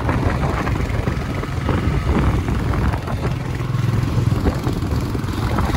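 Royal Enfield Himalayan motorcycle's single-cylinder engine running on the road, with wind rushing over the microphone.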